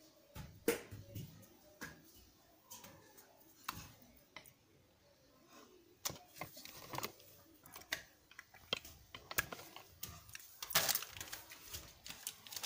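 Irregular light clicks, knocks and rubbing of a phone camera being picked up and handled close to the microphone, busiest near the end.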